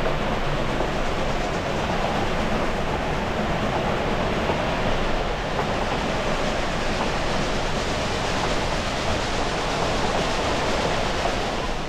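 Steady rolling noise of a narrow-gauge railway coach running on the track, mixed with the rush of river rapids alongside.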